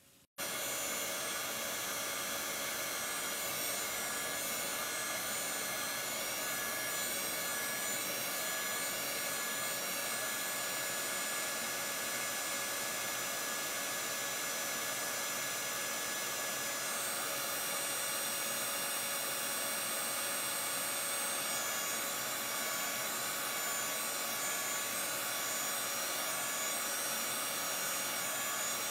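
Loud, steady rushing noise with a hum of fixed tones through it, like a blower or motor running, starting suddenly about half a second in.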